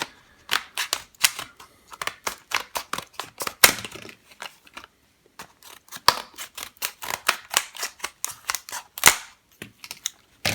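Padlock's retail packet being torn open by hand: an irregular run of sharp crackles and clicks of plastic and card, with a short pause about halfway through.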